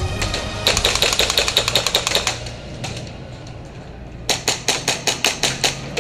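Airsoft gun firing two long full-auto bursts of sharp rapid cracks, about eight to ten shots a second; the first starts just under a second in and the second a little past halfway.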